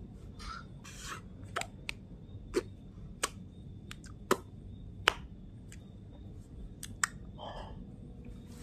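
Hand noises close to the microphone: about a dozen sharp clicks at irregular intervals, with soft rubbing and scraping between them.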